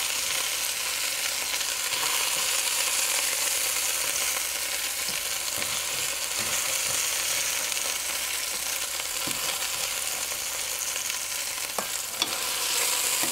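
Skinless chicken thighs sizzling steadily as they sear in a hot stainless steel pan with a little olive oil, browning rather than frying. A couple of light clicks of metal tongs sound near the end.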